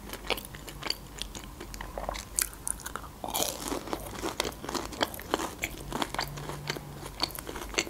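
Close-miked chewing of a breaded KFC fried chicken strip: a run of crisp crunches and wet mouth sounds at an irregular rhythm.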